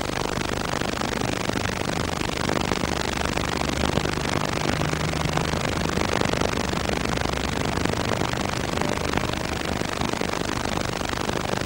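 Steady hiss with a low hum beneath it, the noise of a worn, damaged VHS transfer of an old film soundtrack.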